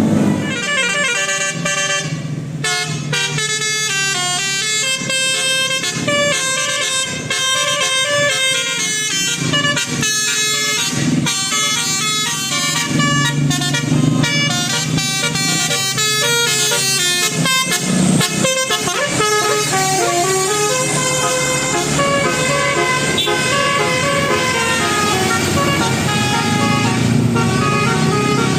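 Bus telolet horn of the Basuri type, a multi-tone horn set, playing a long, fast melody of stepped notes.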